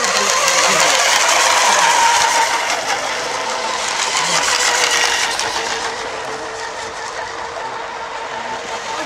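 Radio-controlled model racing hydroplanes running flat out, a high-pitched motor whine with hissing spray, swelling about two seconds in and again around five seconds, then easing off.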